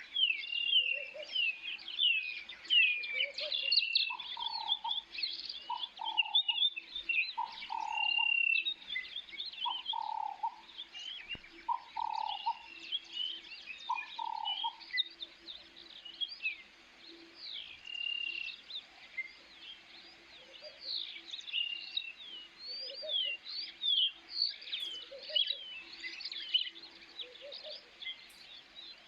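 Birds chirping and calling: many short, high chirps that drop in pitch, over a lower call repeated about every one and a half seconds, which stops about halfway through.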